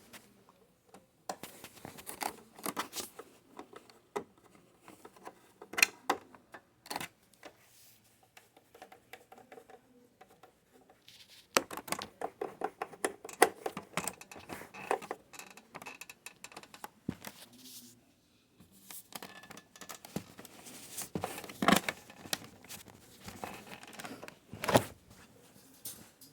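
Irregular small clicks, taps and scrapes of a screwdriver, screws and plastic computer case parts being handled, with quieter gaps between bursts.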